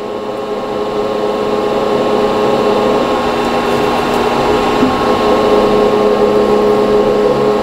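Milling machine running steadily as a five-flute countersink cuts into a copper vise jaw: an even, steady hum with cutting noise and no chatter.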